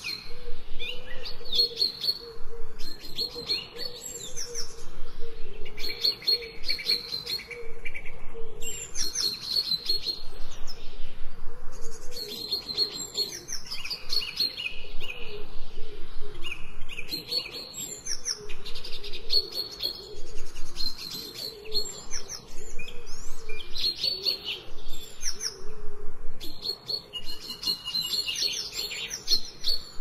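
Songbirds singing, with bursts of high chirps and trills coming every couple of seconds and overlapping.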